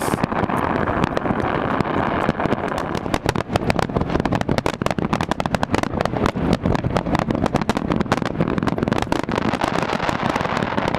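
Large fireworks display: a rapid, dense barrage of bangs and crackles from aerial shells and fountains, over a continuous low rumble.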